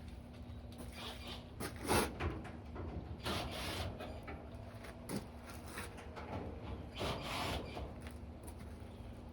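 Scraping, rubbing and knocks from the panels and parts of a Samsung front-load dryer being handled while it is taken apart, with one sharp knock about two seconds in.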